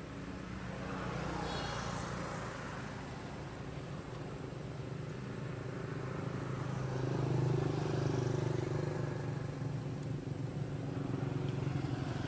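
Steady low engine hum of a motor vehicle running, growing louder about seven to eight seconds in. A brief high-pitched chirp comes about a second and a half in.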